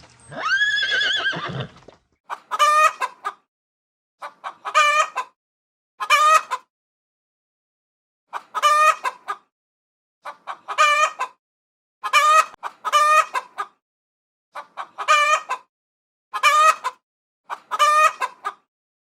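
A horse whinnies for a little under two seconds at the start. Then a chicken clucks in about ten short bursts, each a quick run of clucks, roughly one burst every one and a half to two seconds.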